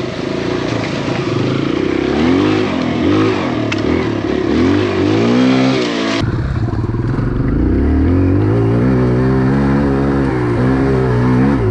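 Kawasaki KLX140 dirt bike's four-stroke single-cylinder engine, revving up and down with the throttle as it is ridden over a rough trail. About six seconds in, the sound turns muffled because the microphone is wet, and the engine holds steadier revs.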